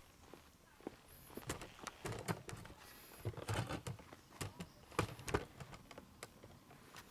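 A series of sharp knocks, clicks and clatters, the sound of hard objects being handled, thickest through the middle and strongest a little after five seconds in.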